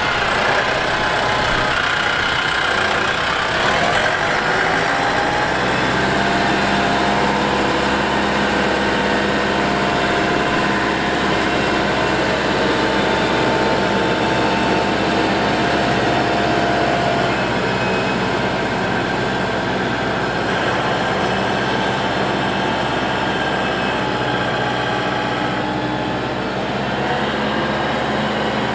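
The RK 74 tractor's 74-horsepower turbo diesel engine runs steadily as the tractor drives about. Its pitch rises a few seconds in and shifts again near the end.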